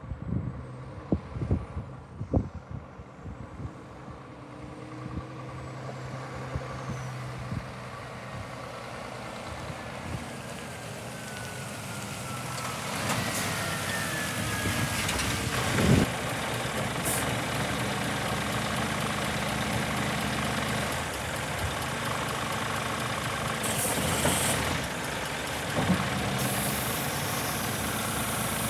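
Scania R490 hooklift truck's six-cylinder diesel engine, growing steadily louder as the truck approaches, then running close by. A slowly falling whine comes as it nears, and there is one loud sharp burst about halfway through.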